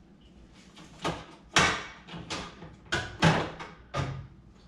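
A run of sharp knocks and clicks, about six in four seconds, as a fitting inside an open French-door refrigerator is worked loose and pulled out; the loudest come about one and a half and three seconds in.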